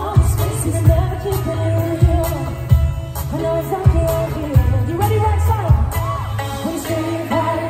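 A female pop singer singing live into a microphone over a pop backing track with heavy bass and a steady beat, coming through a concert PA.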